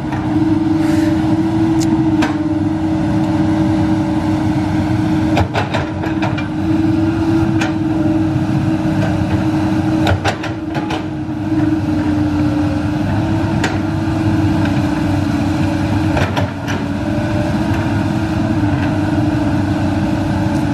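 Komatsu PC200 hydraulic excavator's diesel engine running steadily under digging load as the machine scoops and lifts wet soil, with scattered sharp knocks.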